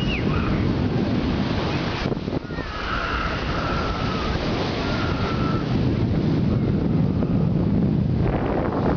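Steady wash of sea surf on the shore, mixed with wind rumbling on the microphone.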